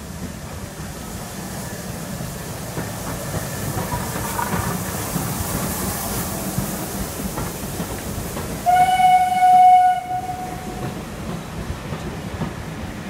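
A train of carriages running past along the track, with a single locomotive whistle blast of just over a second about nine seconds in, the loudest sound here.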